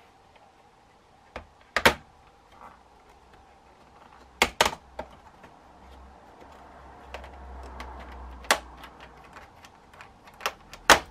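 Sharp plastic clicks and taps from the bottom cover of an Acer Nitro 5 laptop being handled and pried open with a plastic pry tool. A handful of clicks come at irregular intervals, the loudest about two seconds in and near the end.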